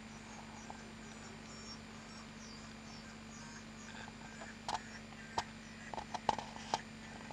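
A piezo disc on the bottom of a paper cup, driven by an LM386 amplifier, plays audio very weakly: only thin, tinny, high-pitched fragments are heard over a steady low hum. The cup does little to make it louder. A few sharp clicks come in the second half.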